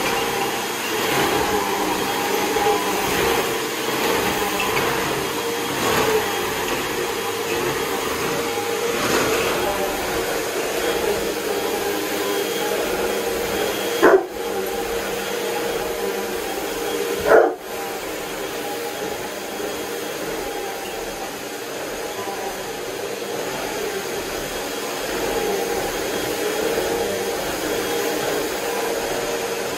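Upright vacuum cleaner running steadily with a constant motor hum. A Bouvier des Flandres barks twice, sharply, about halfway through, the barks about three seconds apart.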